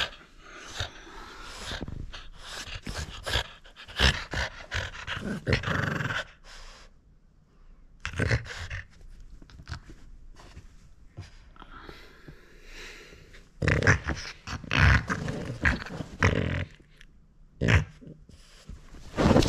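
French bulldog growling in repeated bursts while it keeps hold of a toy that a person's hand is trying to pull away: a guarding growl over the toy. The growling is loudest about four to six seconds in and again from about fourteen to seventeen seconds in, with short quieter breaks between.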